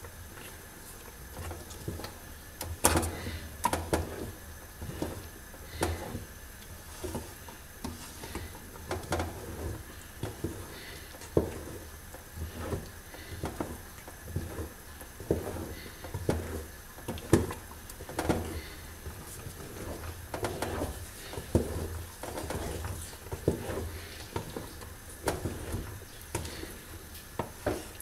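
Wooden spoon stirring a thick sesame-and-hazelnut paste in an aluminium pot, with irregular knocks and scrapes of the spoon against the pot, one or two a second.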